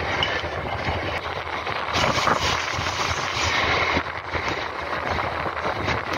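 MEMU electric passenger train running at speed: a steady rumble of wheels on the track, heard from the open doorway.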